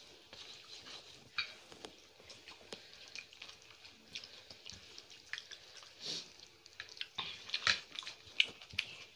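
Close, wet eating sounds of people eating rice and chicken curry by hand: chewing and lip smacks, with fingers mixing rice on plates. They come as scattered short smacks and clicks, more of them near the end.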